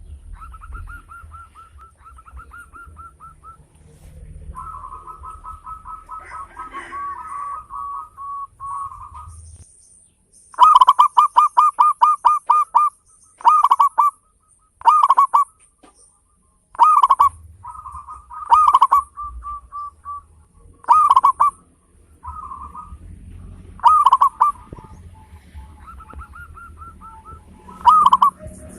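Zebra dove (perkutut) cooing: soft rolling runs of quick notes, then loud bursts of rapid coos recurring every second or two, the longest a run of about ten notes.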